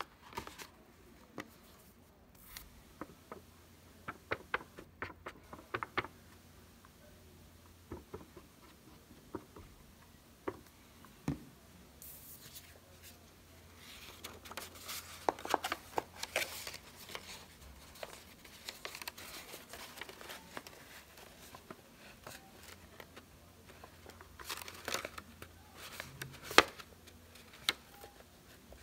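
Construction paper being handled: sheets rustling and crinkling as they are slid into place and pressed down, with scattered light taps and clicks and a few louder bursts of rustling.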